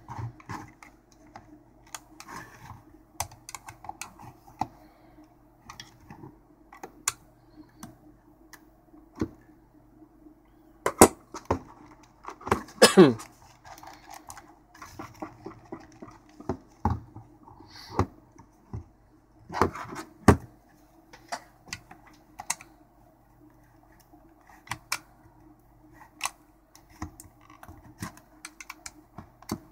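Plastic case of a Dyson DC35 vacuum battery pack being pried open with a thin metal pick and screwdriver: irregular clicks, taps and scrapes of metal on hard plastic, with a few louder snaps and a short creak as the tightly clipped case resists.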